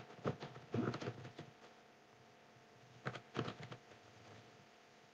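Computer keyboard typing in three short bursts of keystrokes, the last about three seconds in.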